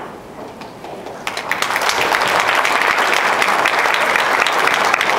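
Audience applauding: scattered at first, swelling into full clapping about a second in.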